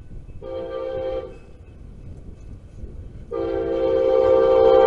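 Horn of an approaching passenger train sounding two blasts: a short one about half a second in, then a longer, louder one from about three seconds in that swells as the train draws nearer.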